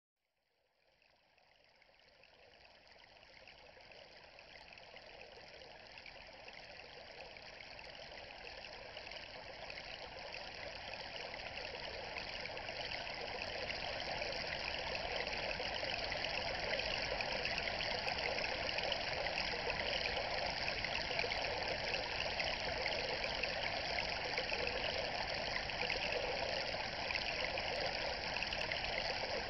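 Steady rush of flowing water, fading in gradually from silence over roughly the first fifteen seconds and then holding level.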